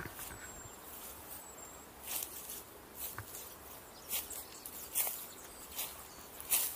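Footsteps swishing through dry grass, a step roughly every second, with a faint, thin bird call in the first two seconds.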